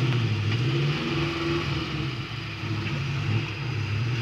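Suzuki Jimny's engine working under load as it climbs a rocky off-road trail. The revs dip about halfway through, then rise again.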